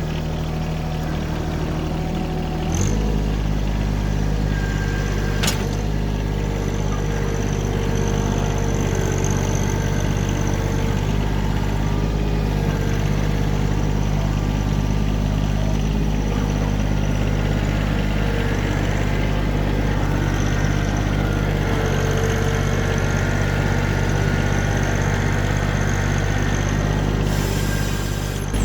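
Tractor engine running steadily. About three seconds in, its note drops lower and gets a little louder, and there is a single sharp click a few seconds later.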